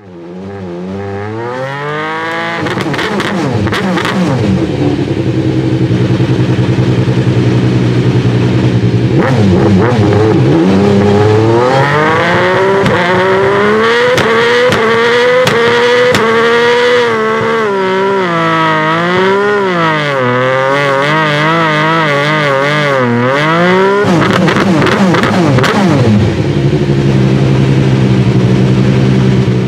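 Alfa Romeo 155 V6 TI race car's V6 engine running while parked. Its pitch climbs in the first couple of seconds, then it idles with short throttle blips. From about the middle it is held high and revved up and down again and again for some twelve seconds, before dropping back to idle near the end.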